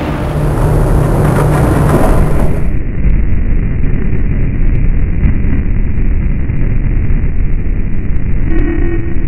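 Loud, dense low rumbling noise that goes on throughout; its higher hiss cuts off abruptly about three seconds in, leaving a duller rumble, and a short pitched tone sounds near the end.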